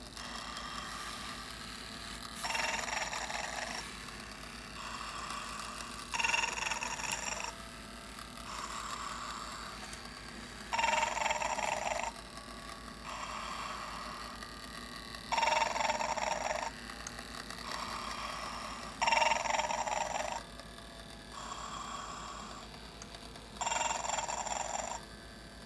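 Snoring Santa toy playing its looped snore through a small speaker: six loud, buzzy snores about four seconds apart, each followed by a softer whistling breath out.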